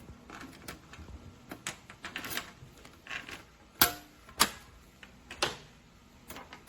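Irregular sharp clicks and knocks from a small handgun safe being handled, about a dozen in all. The loudest two come about four seconds in.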